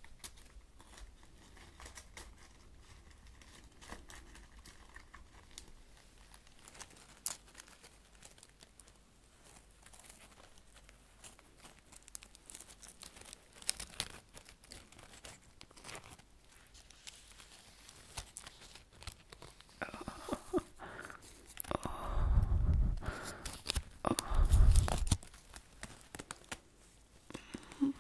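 A dry leaf crinkling and crackling between gloved fingers close to the microphone: soft, dense crackles that grow louder near the end. Twice near the end the gloved hands rub against the foam microphone cover, giving louder, deep rumbling scrapes.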